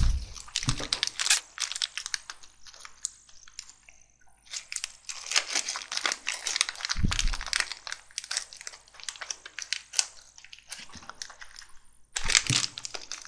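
Irregular crinkling and crunching close to the microphone. There are a few dull low thumps: one at the start, one about seven seconds in and one near the end.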